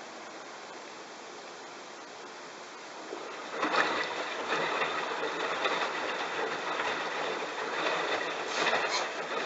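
Bosch washing machine washing a load of towels: a quieter steady hiss, then about three and a half seconds in the drum turns and the louder swish and tumble of wet towels and water takes over, with uneven swells.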